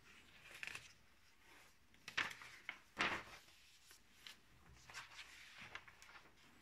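Pages of a paper parts catalogue being turned by hand: a few soft papery rustles, with two sharper page flips close together near the middle.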